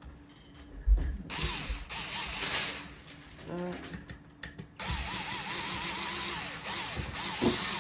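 Electric screwdriver driving the screws of a ceiling fan blade bracket into the motor, in two runs of a couple of seconds or more each with a rapidly repeating pulse, and a thump about a second in.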